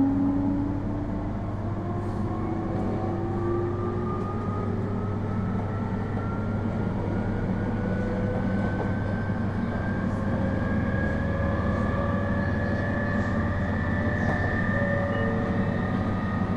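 Onboard running sound of an IGR7000 series electric multiple unit accelerating: the VVVF inverter and traction motor whine climbs slowly and steadily in pitch, over a steady low rumble of the running gear on the rails.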